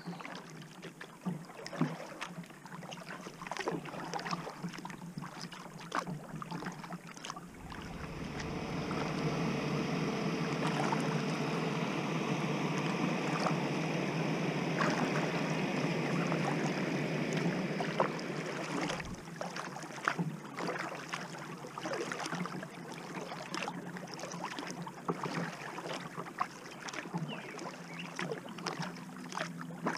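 Kayak paddling: paddle blades dipping into the river, with many small drips and splashes. From about eight seconds in to about nineteen seconds in, a louder, steady rushing noise covers it, then the drips and splashes return.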